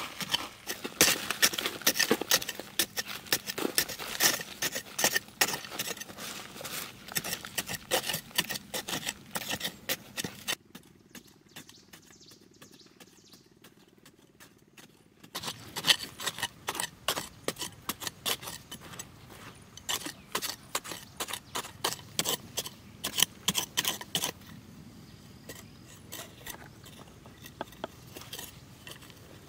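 Large metal knife digging into hard, dry earth: a rapid run of scrapes, chips and clicks as the blade gouges the soil, with a lull of a few seconds near the middle.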